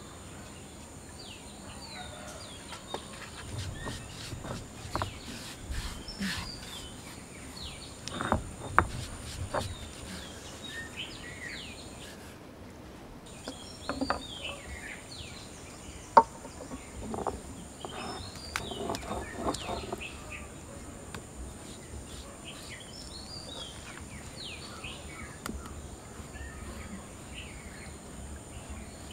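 Small birds chirping again and again with short, falling calls. Under them are a few sharp knocks and clatters from kitchen work, the loudest about eight and sixteen seconds in.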